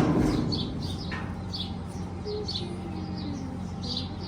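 Small birds chirping, a quick series of short high chirps several times a second over a steady low hum. At the very start, the tail of a loud clatter dies away.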